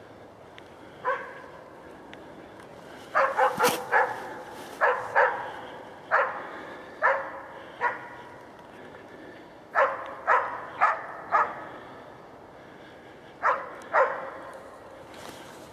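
A hunting dog bay-barking at a wounded wild boar it has found and is holding. About sixteen sharp barks come in uneven clusters of one to four, a second or two apart.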